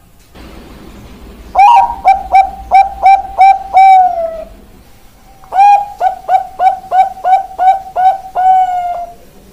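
Zebra dove (Bangkok-bred perkutut) singing: two cooing phrases, each a quick run of short notes, about three a second, closing on a longer drawn-out note.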